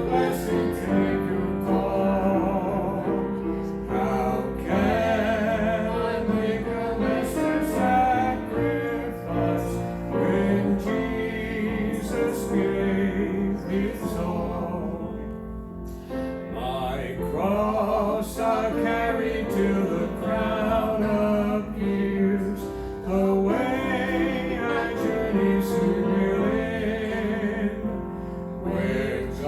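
Church song sung with a wavering, vibrato voice over piano accompaniment.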